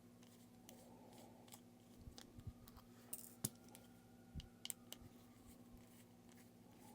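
Near silence with a faint steady hum and a handful of faint, short clicks and taps from small watch parts and tools being handled.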